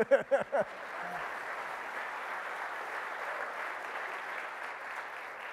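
Audience applauding steadily, easing off near the end.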